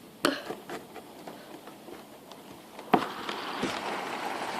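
A few sharp clicks, then a loud knock about three seconds in as a window is opened, after which heavy rain outside comes through as a steady, louder hiss.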